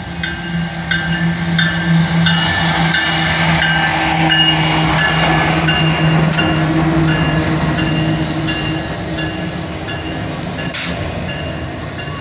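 CSX diesel locomotives passing with a steady low drone, while a grade-crossing bell rings about twice a second. The drone gives way to the rushing rumble of double-stack container cars rolling over the rails, with one sharp clank near the end.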